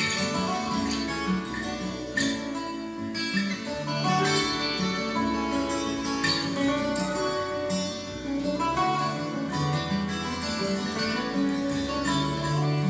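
Instrumental break of an acoustic-guitar song, guitar playing between sung verses, played back from a Panasonic cassette deck.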